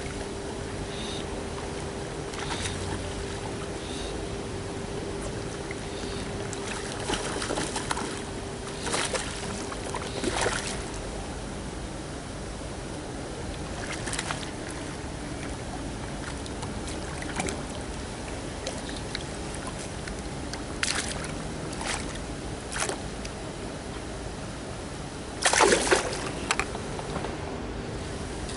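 A hooked trout splashing at the pond surface as it is played, in sudden bursts every few seconds, the biggest splash near the end. A faint steady hum runs under the first ten seconds or so.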